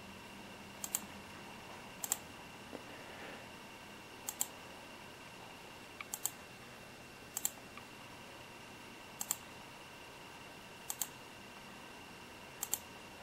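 Computer mouse clicking in quick pairs, eight times, about every one to two seconds, over a faint steady electronic whine.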